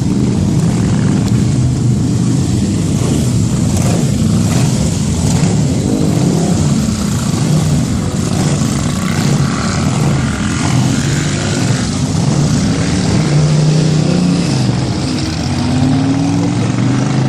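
Vintage motorcycle engines running as several bikes ride past at low speed, their pitch wavering with the throttle and rising near the end as one accelerates.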